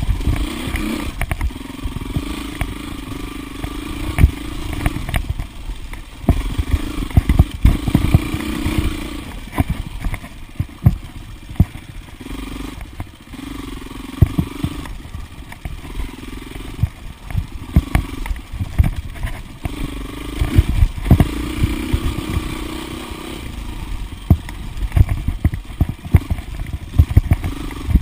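2008 Husqvarna TXC 450 dirt bike's four-stroke single-cylinder engine being ridden hard on a trail, the throttle opening and closing every second or two. Frequent sharp knocks and rattles run through it.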